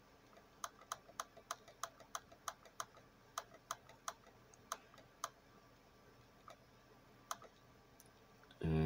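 Repeated clicking of a computer pointer button, stepping a date forward one click at a time: a run of sharp clicks about three a second that thins out after about five seconds, with two last clicks later.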